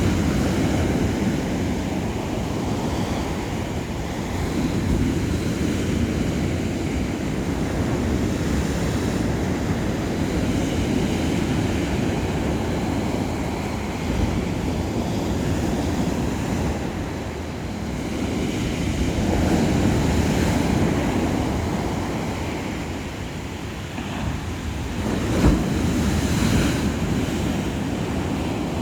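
Sea waves breaking and washing on the shore: a continuous rushing surf that swells and eases every few seconds, with wind buffeting the microphone. A single short, sharp knock comes about three-quarters of the way through.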